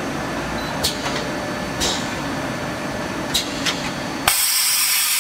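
Automatic armature commutator turning lathe running, a steady mechanical noise with a few sharp clicks from its mechanism. Near the end the sound switches abruptly to a loud steady hiss.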